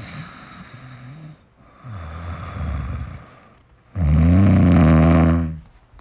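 A person snoring: three snores about a second and a half each, the third much louder than the first two.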